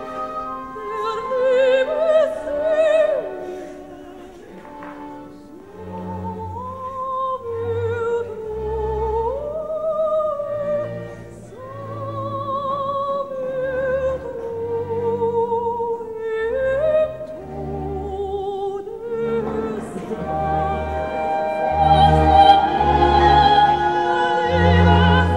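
Operatic singing with strong vibrato over an orchestral accompaniment, with low bass notes coming in about six seconds in.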